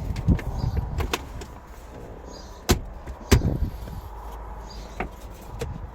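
Irregular clicks and knocks from an Acura MDX SUV's fittings being handled, two sharp knocks about halfway through, over a low steady hum.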